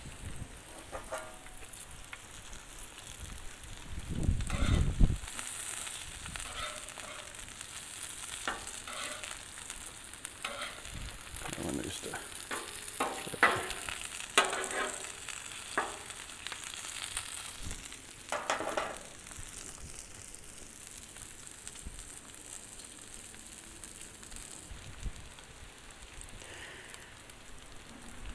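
Bacon, sausage patties and hash browns sizzling steadily on a hot steel flat-top griddle, with scattered scrapes and taps of a metal spatula on the cooking surface as the meat is moved and turned, and one louder low bump around five seconds in.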